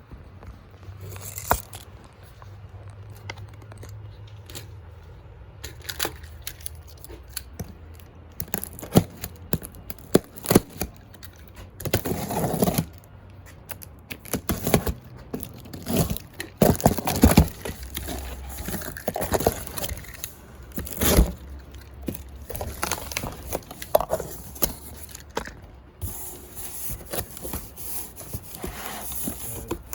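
Cardboard shipping box being opened by hand: tape tearing, with flaps and packing scraping and crinkling, and scattered sharp knocks and clicks.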